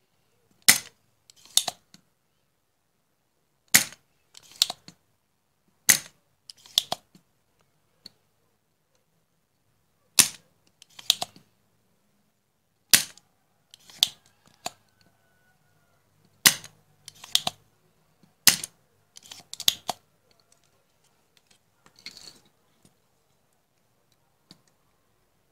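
Spring-loaded desoldering pump (solder sucker) clearing solder from circuit-board pads: sharp plastic snaps, mostly in pairs about a second apart, seven times over, as the plunger is fired and cocked again.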